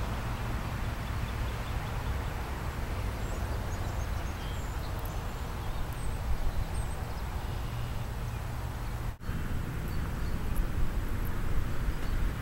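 Steady outdoor background rumble, heavy in the low end, with a few faint bird chirps; it drops out for an instant about nine seconds in at a cut.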